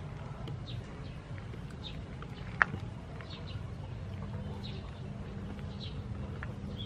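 Birds chirping now and then over a low steady hum, with one sharp click about two and a half seconds in.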